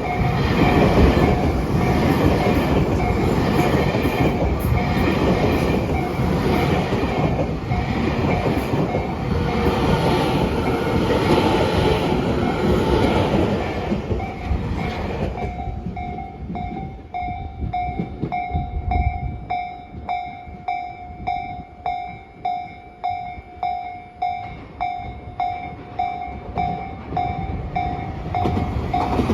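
A train passing over a level crossing, its wheels clattering over the rail joints, while the crossing's warning bell rings. About halfway through the train noise dies away and the bell rings on alone in a steady rhythm of roughly one and a half strikes a second.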